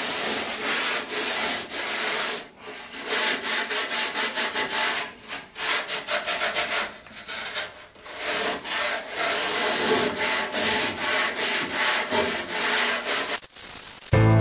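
Scotch-Brite scouring pad scrubbed back and forth over the rusty steel bed frame of a 1966 VW double cab, stroke after stroke with a few brief pauses, scouring off dirt and grime.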